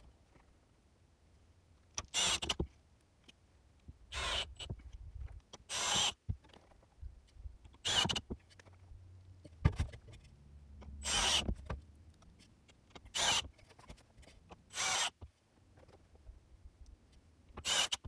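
Power drill driving screws into corrugated steel roofing panels: eight short bursts of about half a second to a second each, roughly two seconds apart.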